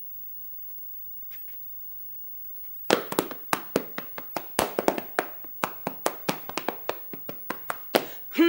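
Hands clapping and slapping the body to beat out a quick rhythm, about four sharp strikes a second, starting about three seconds in after near silence.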